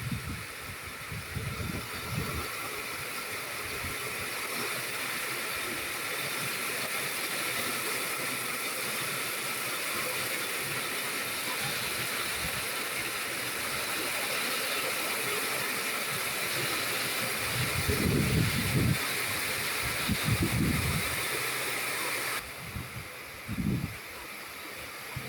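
Rain falling: a steady, even hiss that drops away sharply about 22 seconds in. It is broken by a few low rumbling bumps near the start and around 18 to 21 seconds in, the loudest moments.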